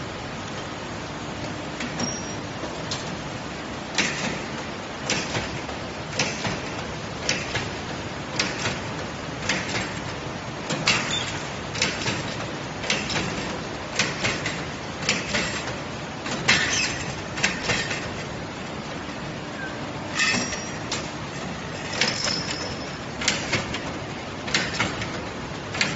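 CNC tube punching machine punching a row of square holes along a metal tube: a sharp clack about once a second over a steady machine hiss, starting a few seconds in, with a short pause about two-thirds of the way through.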